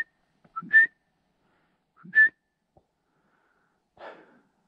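A hunter's whistled call for thrushes: three short two-note whistles, a lower note jumping up to a higher one. A soft rustle follows near the end.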